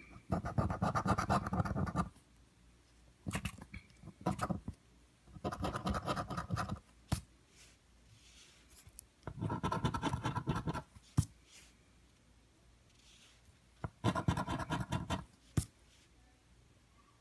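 Scratching off the latex coating of an instant lottery scratch ticket, in five separate bursts of rapid strokes one to two seconds long, with a few single sharp taps between them.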